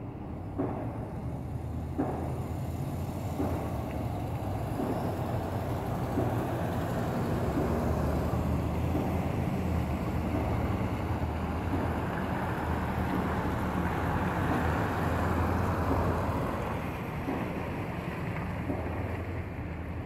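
Distant pile driving at a railroad bridge: a few sharp thuds about a second and a half apart in the first few seconds, over a steady low rumble that swells through the middle and eases off near the end.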